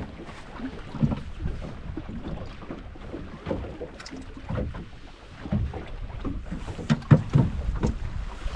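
Small water slaps and irregular low knocks against a boat's hull, a few louder thumps about seven seconds in.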